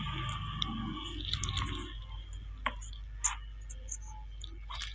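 Desoldering an IGBT from an induction cooktop's circuit board with a soldering iron: faint crackling and a few light clicks and taps of the iron tip and component legs, over a low steady hum. A faint steady tone fades out about two seconds in.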